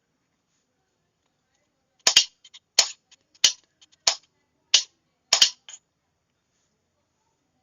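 Morse signalling key clicking as characters are sent: about a dozen sharp clicks in uneven groups, starting about two seconds in and stopping about six seconds in, with no tone between them.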